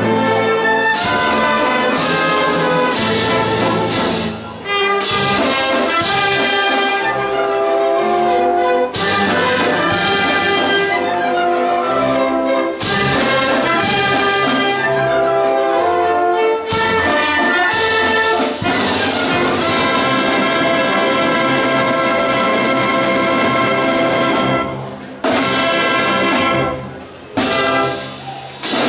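A school orchestra of strings, woodwinds and brass playing an orchestral waltz at full volume, with a few short breaks between loud chords near the end.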